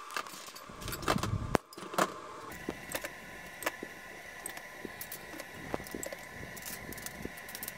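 Light clicks, taps and crinkling of aluminum foil as a chopped onion, garlic and black-bean topping is spooned onto a whole fish lying on the foil. A faint steady high tone joins about two and a half seconds in.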